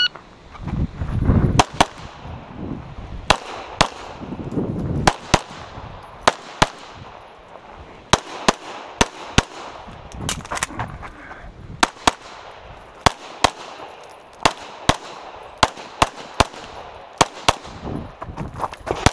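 Rapid pistol fire from a SIG P320 fitted with a Grey Guns Lockwood slide kit during a USPSA stage run. The shots come mostly as quick pairs, about a second or so apart, throughout.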